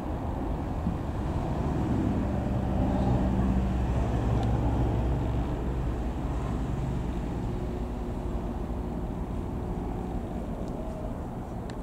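Reims Cessna F172N Skyhawk's four-cylinder piston engine and propeller droning in flight overhead. The drone grows to its loudest about two to five seconds in, then slowly fades as the aircraft moves away.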